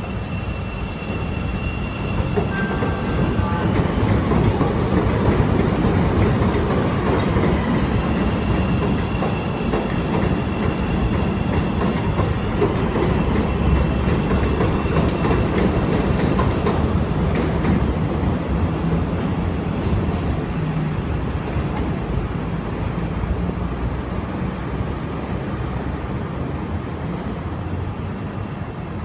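CTA 'L' trains, among them a 5000-series rapid transit train, pulling out of an elevated station platform: rumble and wheel clatter with a high steady whine, loudest about five seconds in and slowly fading as the trains leave.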